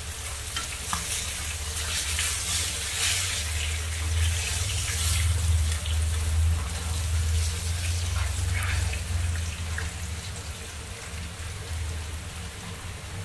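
Hot sunflower oil sizzling and crackling in the frying pan after shallow-frying pearl spot fish, louder around the middle, over a steady low hum.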